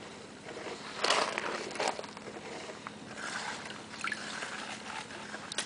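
Water sloshing and splashing as a plastic gold pan is dipped and tilted in a tub of water, washing the light sediment out over its lip so the heavy gold settles in the bottom. Two louder splashes come about one and two seconds in.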